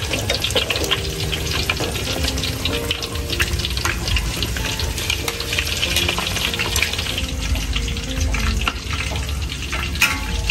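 Logs of fish-and-shrimp paste (chả cá tôm) frying in hot oil in a pan. It is a steady, dense sizzle full of sharp crackling pops.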